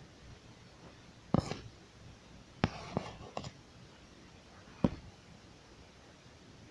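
Five sharp taps or knocks at uneven intervals over a faint steady hiss.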